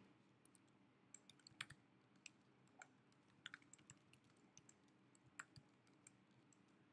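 Faint, irregular keystrokes on a computer keyboard, typing out a line of code.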